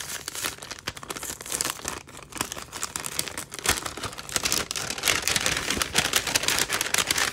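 Polka-dot wrapping-paper envelope being peeled open and unfolded by hand: paper crinkling and rustling, busier and louder in the second half.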